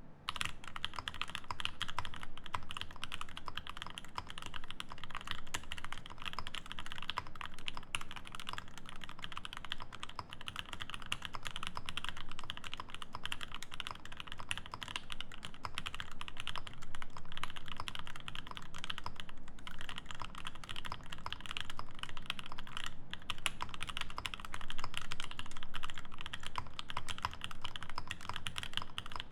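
Fast, continuous typing on an acrylic-plate Alice-layout mechanical keyboard fitted with lubed, filmed Alpaca V2 linear switches and GMK keycaps. The keystrokes run together in a dense stream, easing only briefly twice in the second half.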